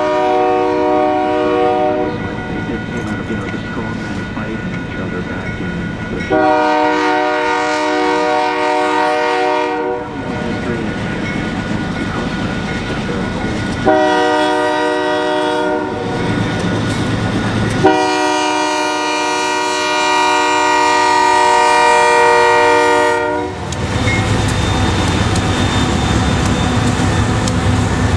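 Diesel locomotive's multi-note air horn sounding four blasts, long, long, short, long: the standard warning for a grade crossing. Near the end the horn stops and the locomotive's engine rumble takes over as it reaches the crossing.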